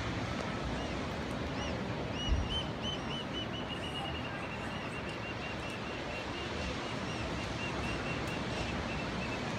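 Steady rush of ocean surf, with a bird giving a rapid run of high, arched chirps, several a second, from about two seconds in. A single low thump sounds about two seconds in.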